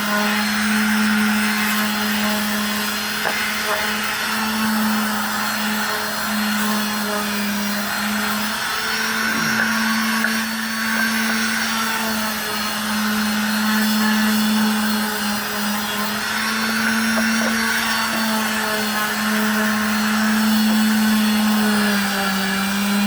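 Handheld electric power tool running steadily with a constant motor hum, working over reclaimed wood boards to lightly smooth the rough surface before staining. The pitch dips slightly a few times as it loads against the wood.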